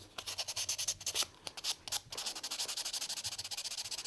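Fine-grit sandpaper rubbed by hand over a cured epoxy-sculpt patch on a plastic toy pony's foot, in quick short back-and-forth strokes of high hiss with two brief pauses in the first half. The patch is being smoothed level with the original body.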